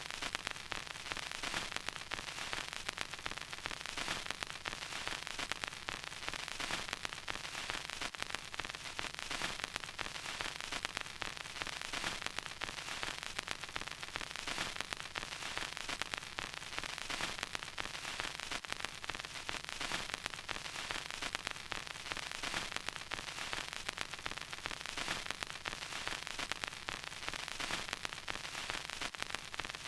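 Vinyl record surface noise: a steady hiss thick with small random clicks and pops from the needle in the groove.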